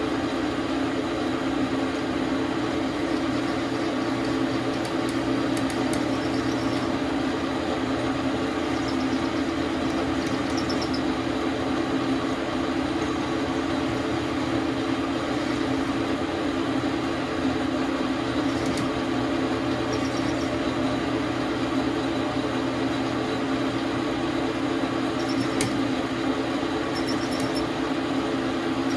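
Dar Sin 12 x 37 manual lathe running steadily, a constant machine hum with a few faint high ticks.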